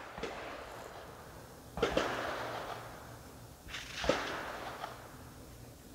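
Rifle shots from other firing points down the range, each a sharp crack followed by a long rolling echo: one about two seconds in and two more close together near four seconds.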